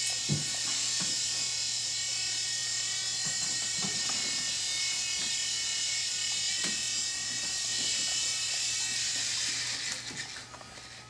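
Toy remote-control helicopter's small electric motor and rotor buzzing steadily, with a high whine, then dying away about ten seconds in.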